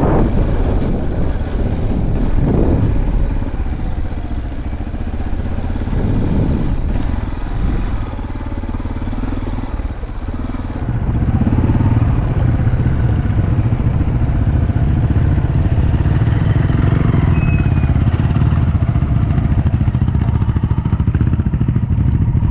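Dirt bike engine running while being ridden, heard from the rider's helmet camera. About halfway through, the engine gets louder and steadier.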